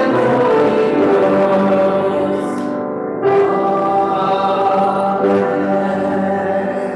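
Keyboard playing slow, sustained chords, with a short break about three seconds in, dying away near the end.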